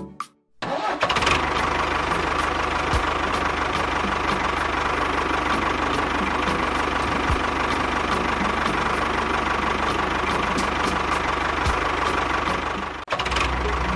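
An engine-like motor running steadily with an even ticking knock, starting about half a second in and breaking off abruptly near the end before changing to a lower note.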